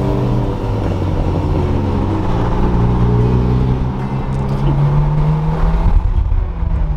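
Honda S2000's four-cylinder engine on its stock exhaust, pulling under acceleration: the engine note climbs steadily in pitch for several seconds, then drops back near the end.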